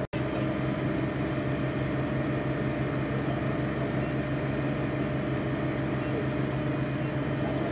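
Engine of fire apparatus running steadily at a constant speed, a continuous multi-tone drone with no change in pitch.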